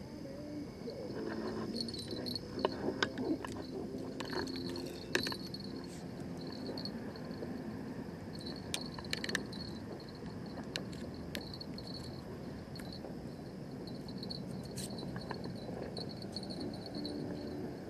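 Crickets chirping in a steady pulsing trill, with scattered clicks and knocks of gear being handled, most of them in the first few seconds.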